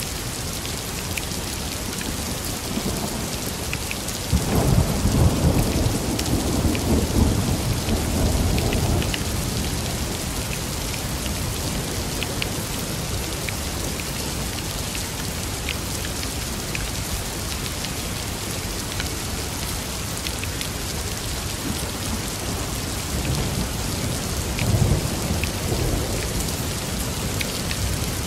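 Steady rain falling through a thunderstorm, with scattered drop ticks. A roll of thunder starts suddenly about four seconds in and rumbles for about five seconds before dying away, and a second, shorter rumble comes near the end.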